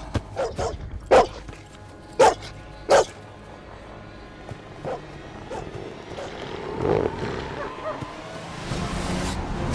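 The alien 'space dog', a Predator hound, barking: several sharp, loud barks in the first three seconds, then a fainter one about five seconds in.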